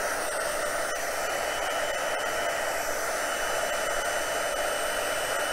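Handheld embossing heat tool running: a steady rush of blown air with a faint high whine, as it heats and melts white embossing powder.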